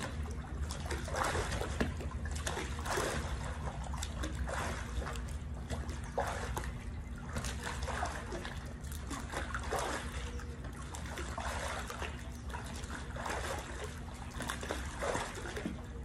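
Pool water sloshing and splashing in irregular surges as a person exercises standing waist-deep, over a steady low hum.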